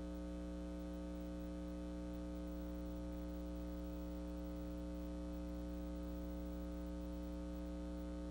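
Steady electrical mains hum with a buzzy edge from many overtones, unchanging throughout.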